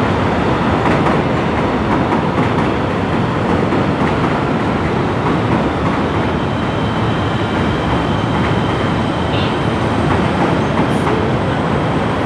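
Chicago 'L' elevated train running overhead along the elevated track: a steady, loud noise of wheels on rail that holds for the whole stretch.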